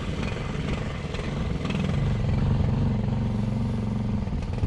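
Okuma Epixor spinning reel being cranked steadily, a low mechanical whirr of its gears as a small hooked tigerfish is reeled in.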